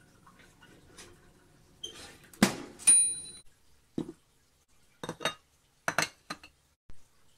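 Kitchenware being handled: a loud clatter with a brief metallic-sounding ring about two and a half seconds in, a dull knock near four seconds as a glass mason jar of milk is set down, then several sharp clinks from ceramic plates being set down on the table.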